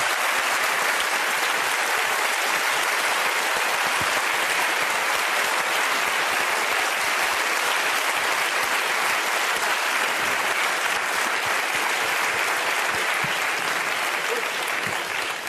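Studio audience applauding steadily, dying away right at the end.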